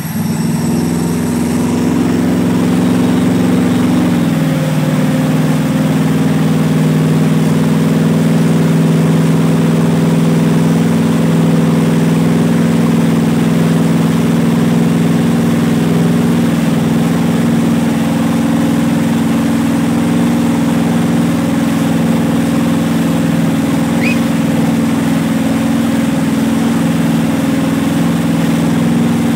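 Towboat's motor running steadily under load while pulling a wakeboarder, its note dropping a little about four seconds in and then holding; water rushing in the boat's wake underneath.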